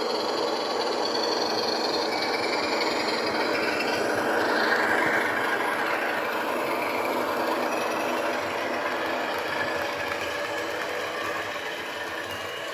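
A model diesel locomotive's DCC sound decoder playing diesel engine sound through its small speaker as the locomotive runs, mixed with the whir of its motors and wheels on the track. A steady running sound that swells briefly about halfway through.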